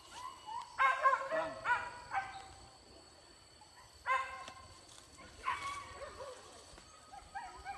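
Hunting dogs yelping in short, high, falling cries: a run of yelps about a second in, then single yelps at about four seconds and about five and a half seconds.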